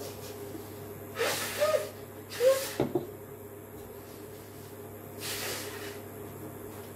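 A person slurping hot pot food off chopsticks: two loud, squeaky sucking slurps in quick succession about a second in, then a softer breathy slurp a few seconds later.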